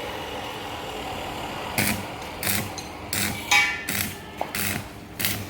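Metal frame work: a series of irregular metallic knocks and clanks starting about two seconds in, several a second, some with a short ring after them.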